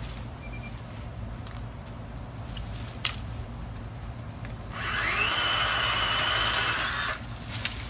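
Greenworks 16-inch 40V cordless chainsaw's electric motor whining up to speed and cutting through a tree limb for about two seconds, then stopping abruptly. A few faint clicks come before it and one just after.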